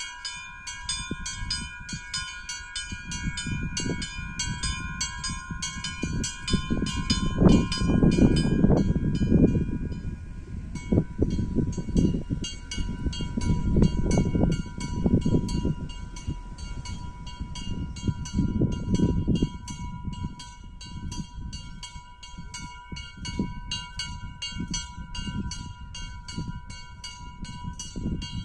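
Two small bells in a chapel's bell gable rung by hand in a quick, steady peal, about three strikes a second, the ringing of each strike running into the next; the pattern of the ringing changes about ten seconds in. Under it, a low, gusting rumble of wind on the microphone, strongest about eight seconds in.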